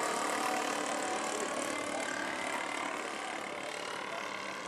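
Twin engines of a quarter-scale Beech 18 model airplane droning in flight, fading slightly as it flies away.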